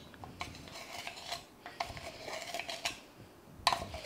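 Measuring spoons clicking and tapping against a baking powder can and a glass mixing bowl while baking powder is measured out; a few light taps, two of which leave a short ring from the glass.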